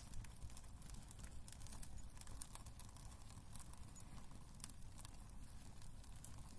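Wood fire crackling in a fireplace: scattered small pops and snaps over a soft, steady low rumble of the flames.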